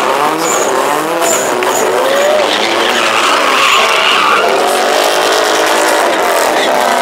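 A car spinning donuts: the engine revs high while the tires squeal and skid on the pavement, a continuous screech that wavers in pitch.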